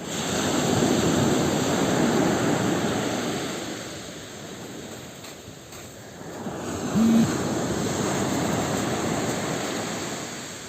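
Sea surf: two surges of rushing noise as waves wash in and ebb away. A brief short tone cuts in about seven seconds in.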